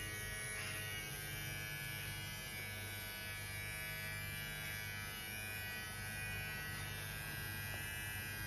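Cordless electric hair clipper running steadily as it trims hair at the side of a man's head, a constant even hum.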